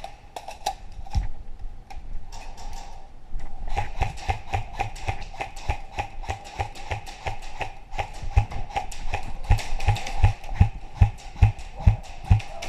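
Airsoft guns snapping off shots in quick strings, with BBs clicking on cover. The shots grow denser about three and a half seconds in, and heavy footfalls thud two or three times a second in the second half.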